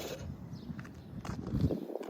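Small radio-controlled 4x4 truck clattering over rough ground, with scattered knocks and clicks over a low rumble that fades away near the end.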